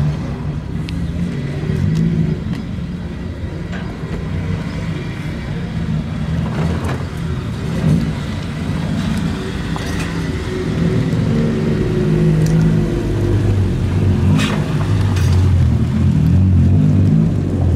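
Lowered cars' engines and exhausts at low revs as they roll slowly past one after another, a steady low rumble that grows louder over the last few seconds. There are a couple of short sharp knocks, one about seven seconds in and one near fourteen seconds.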